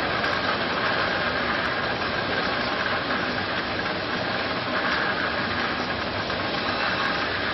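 Peanuts tumbling in a rotating 304 stainless steel coating pan as they are coated in flour, making a steady rushing noise that does not change.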